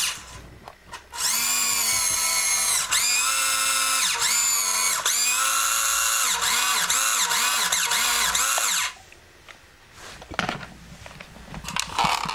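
Electric drive motor and gearbox of a toy radio-controlled military truck whining, the pitch rising and falling as the throttle is worked, with several quick short blips near the end. It cuts off about nine seconds in, and a few faint knocks follow.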